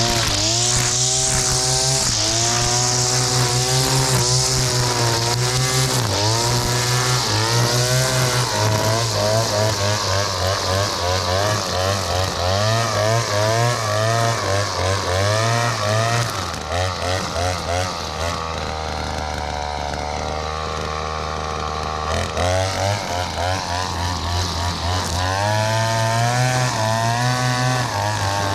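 Two-stroke string trimmer (whipper snipper) running under load, its engine revving up and falling back over and over as the throttle is worked. About two-thirds of the way through it settles to a steady, lower idle for several seconds, then revs up again.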